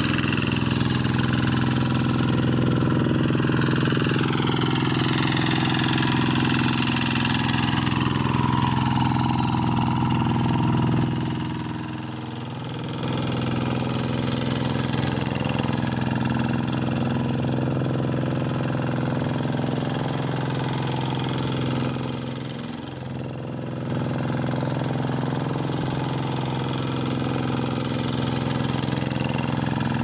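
Single-cylinder diesel engine of a G1000 hand tractor running steadily under load as its cage wheels plow a flooded rice paddy. The level dips briefly twice.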